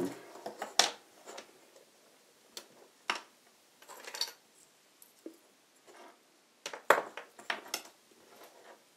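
Scattered short clicks and taps as a small converter circuit board, DC plug connectors and cables are handled and set down on a wooden tabletop. There is a small cluster about four seconds in and the loudest knocks about seven seconds in.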